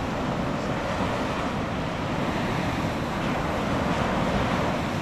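Steady wash of ocean surf with wind buffeting the microphone, swelling slightly near the end.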